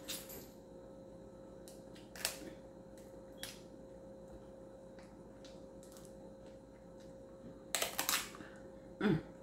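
Scattered sharp clicks and cracks of crab-leg shells being snapped and picked apart by hand while eating, with a cluster of cracks near the end. A short hummed 'mm' comes just after it.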